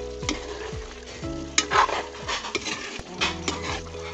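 A utensil stirring and scraping in a pot of simmering chicken adobo, a handful of short scrapes, over background music.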